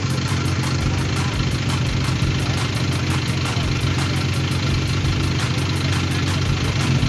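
Vehicle engine idling steadily, a low even hum under a constant hiss.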